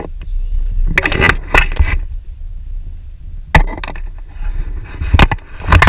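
Wind blowing over an action-camera microphone in a low steady rumble, with several sudden bursts of rustling and flapping.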